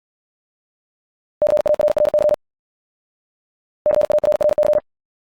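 Morse code at 70 words per minute: a steady single-pitch tone keyed in rapid dots and dashes. One word is sent about a second and a half in and another about four seconds in, each burst lasting about a second.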